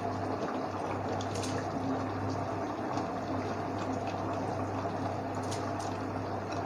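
Chicken gravy boiling in an open aluminium pot on a gas stove: a steady bubbling, with a few faint soft ticks as handfuls of soaked basmati rice drop in.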